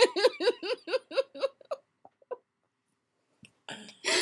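A girl giggling: a quick run of short 'ha' pulses, about seven a second, that trails off after about two seconds, with breathy laughter returning near the end.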